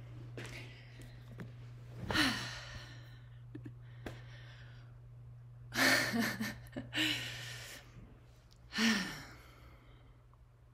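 A woman's breathy sighs and exhalations, winded after dancing, with a short burst of laughter about six seconds in.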